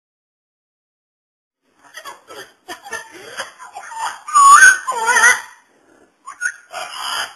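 Parrot vocalizing: after about two seconds of silence, a string of short whistles and chattering, wavering calls, loudest around the middle.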